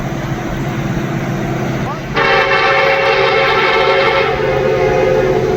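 Air horn of an approaching Norfolk Southern diesel locomotive sounding once: a chord of several steady tones starting about two seconds in, strong for about two seconds, then fading, over a steady low rumble.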